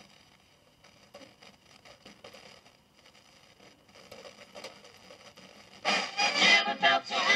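Philips 208U valve radio being tuned: faint crackles and rustles as the pointer sweeps the dial, then about six seconds in a station comes in loudly with music.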